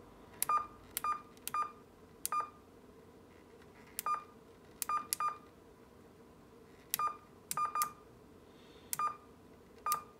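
Key beeps from an AnyTone 5888UV III mobile transceiver as its menu settings are stepped through: about a dozen short, identical high beeps, irregularly spaced and some in quick pairs or runs, over a faint steady hum.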